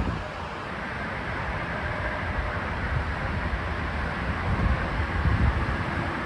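Gusty thunderstorm wind blowing past and buffeting the microphone, a steady rushing noise with uneven low rumbles: the gust front arriving with a fast-moving shelf cloud.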